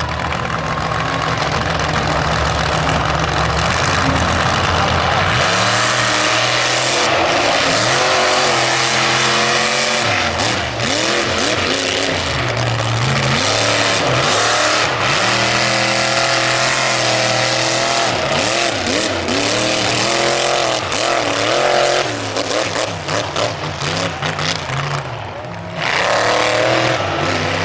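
Monster truck engine revving hard, rising and falling in pitch again and again as the truck drives the course. It eases off and wavers briefly a little after twenty seconds in, then revs up loudly again near the end.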